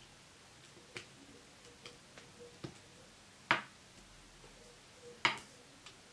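Small clicks and snaps of loom rubber bands being stretched and slipped over a small plastic loom tool by hand: a few light scattered clicks, with two sharper snaps about three and a half and five seconds in.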